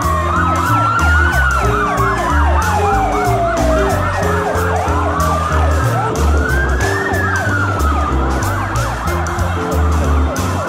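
Several emergency-vehicle sirens sounding at once, slow wails rising and falling overlapping fast repeated yelps, with music and low steady notes underneath.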